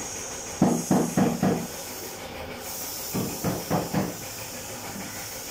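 Compressed air hissing steadily from a gravity-feed paint spray gun, cutting out for about half a second around two seconds in and then starting again. Two louder runs of rapid low knocking come through the hiss, about a second long each.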